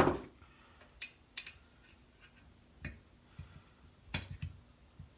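Scattered sharp clicks and light knocks of hand tools and chainsaw parts being handled during a teardown. The loudest click comes right at the start, and a quick cluster of knocks follows near the end.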